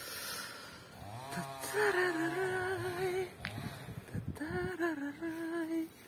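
Two long, wavering vocal tones at about the same pitch, the first starting about a second and a half in and the second just past the middle.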